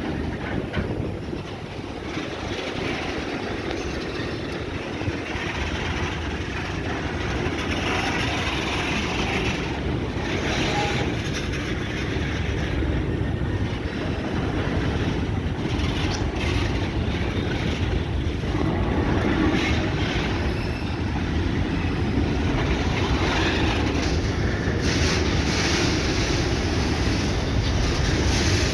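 Freight train rolling past, its wheels clicking over the rail joints, growing gradually louder.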